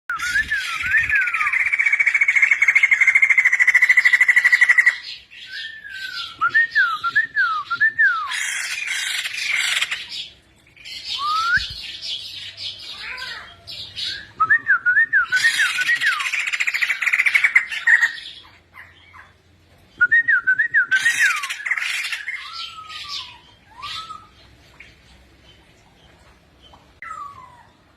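White-crested laughingthrush in full song: loud, harsh rattling chatter in bursts, alternating with runs of rising-and-falling whistled notes. The calls grow sparser in the last few seconds.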